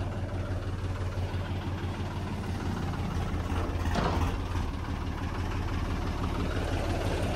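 Motorcycle engine idling through a newly fitted replacement silencer, a steady low exhaust note with a brief rise about four seconds in.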